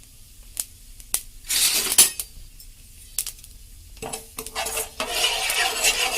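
Metal spoon clinking and stirring in a kadai while cumin and mustard seeds sizzle in hot oil, with sharp scattered clicks and a thicker stretch of sizzling from about four seconds in.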